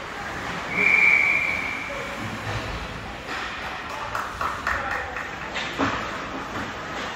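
Ice hockey referee's whistle blown once, a single steady high tone lasting about a second. It is followed by scattered clicks and scrapes of sticks and skates on the ice.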